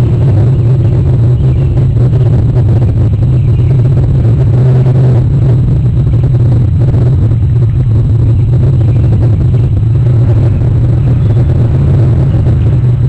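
Loud, steady low rumble.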